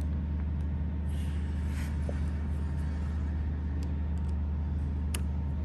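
Steady low mechanical hum, with a faint click about five seconds in.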